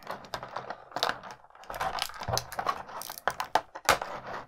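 Clear plastic blister tray crinkling and clicking as it is handled and the small plastic accessory pieces are taken out of it, in a string of irregular short clicks and rustles.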